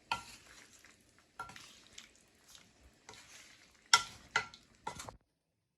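A spoon stirring chicken korma in a pot, with scraping strokes over the sizzle of the simmering sauce, then a few sharp knocks of the spoon against the pot near the end before the sound cuts off suddenly.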